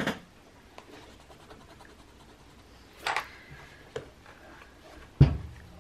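Dry art material scratching across sketchbook paper in a few short strokes, spaced a few seconds apart, with a small tick in between. A sharp thump, the loudest sound, comes about five seconds in.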